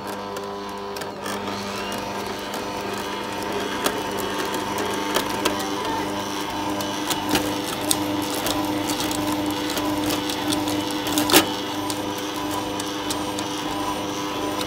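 Kitchen stand mixer running steadily, its motor humming as the kneading tool churns a stiff bulgur dough for çiğ köfte in the bowl. Scattered clicks throughout, and one sharp knock about eleven seconds in.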